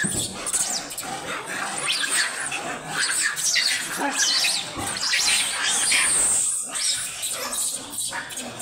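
A troop of rhesus macaques calling at once, many overlapping high calls that rise and fall in pitch, with one longer high cry about six seconds in. These are the agitated calls of rival monkey groups squaring off.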